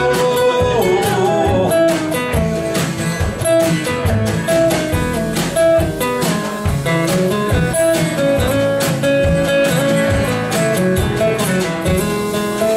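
Live acoustic band playing an instrumental passage: acoustic guitars picking melody notes over upright bass and drums. A long held note slides down about a second in.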